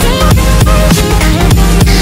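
Background music: an instrumental stretch of an electronic song with a heavy drum beat and deep kick drums.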